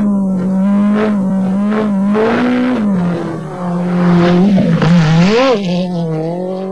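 Group B rally car engine running hard at high revs, its pitch rising and falling with throttle and gear changes. A little past the middle the revs drop sharply, then climb again.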